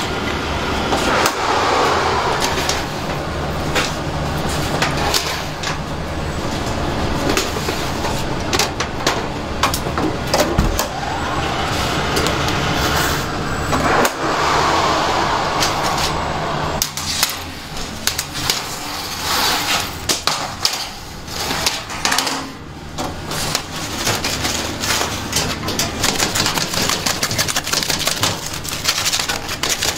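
Bakery work noise: a steady hum of machinery with scattered clatter and knocks of metal baking trays, the clatter busier in the second half.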